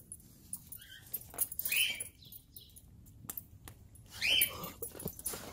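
A dog whining in a few short, high-pitched whines, the loudest about four seconds in.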